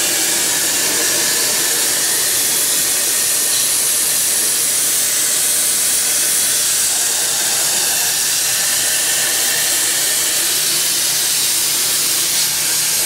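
Plasma cutter cutting around the outside perimeter of a metal flange plate: a steady, continuous hiss of air and arc.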